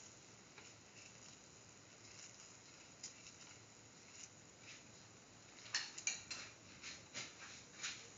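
A metal spoon rubbing over a flatbread in a pan as it spreads clarified butter: faint soft scraping, then a quick run of light clicks and taps against the pan in the last few seconds.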